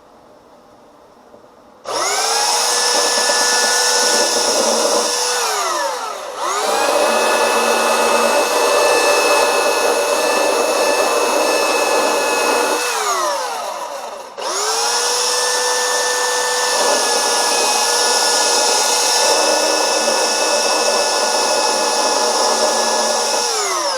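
Electric power sander switched on three times. Each time the motor spins up to a steady whine, runs for several seconds, then winds down.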